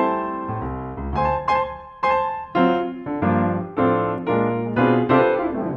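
Intro music led by piano: chords and notes struck in an even rhythm over a bass line.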